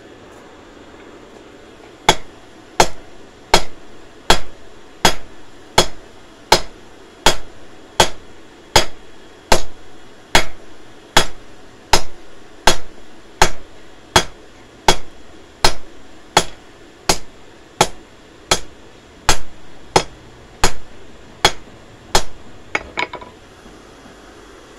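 Hand hammer striking hot steel on an anvil while a tent peg is being forged: about 28 evenly spaced blows, a little more than one a second, each with a short metallic ring. A few quick, lighter taps come near the end.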